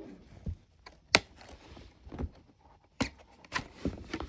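Handling noises: a few separate sharp clicks and knocks with faint rustling between them as the camera is set down and the alarm is taken out of its packaging, the loudest knock about a second in.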